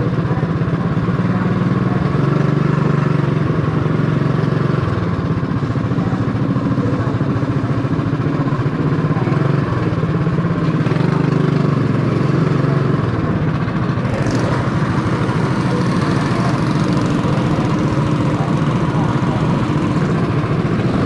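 Cycle kart's small engine running steadily at low revs, heard close up from on board, with a few small shifts in pitch.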